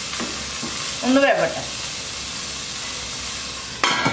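Diced vegetables (onion, carrot, green peas and green chilli) sizzling in hot oil in a nonstick pan as they are stirred with a wooden spatula, with a sharp clatter near the end.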